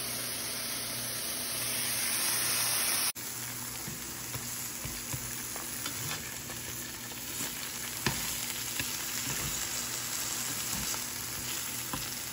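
Broccoli and an egg frying in a pan: a steady sizzle, harsher and louder for the first three seconds, with a few light taps and scrapes of a spatula.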